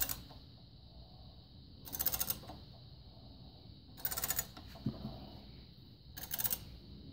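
Ratchet tap handle clicking as it is swung back between cutting strokes while tapping 14 mm x 1.5 threads into the aluminium outlet port of a VW oil pump housing: short bursts of rapid clicking about every two seconds.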